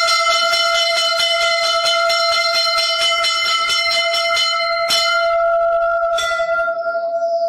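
Temple bell struck over and over in quick succession, its ringing tone holding steady under the clangs.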